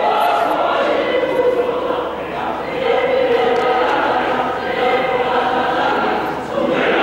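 Choir singing in held, layered chords, heard through a sound system playing back a recorded performance, with short breaks between phrases about two seconds in and near the end.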